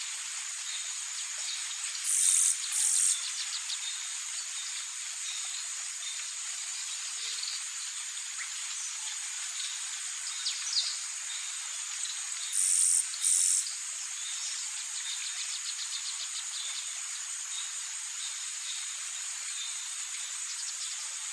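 Insects, crickets or similar, buzzing in a steady high drone. Two pairs of short, high bird calls come about two seconds in and again near the middle, with a few quick runs of ticking chirps.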